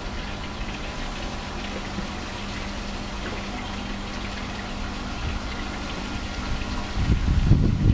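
Steady hum of the vortex column's water pump, with water swirling and draining through the tube. A louder uneven low rumble comes in near the end.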